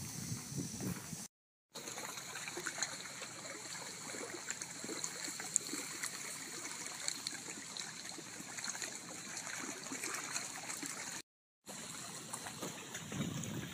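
Steady background noise of water with many small crackles, cutting out completely twice for a moment, about a second in and near the end.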